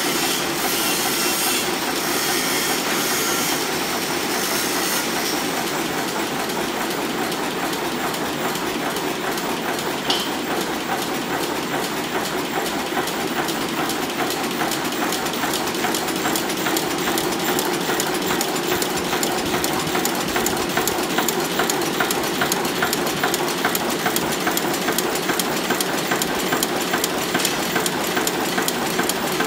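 FEDA cold heading machines for bolts and screws running, a steady fast rhythmic clatter of repeated heading strokes.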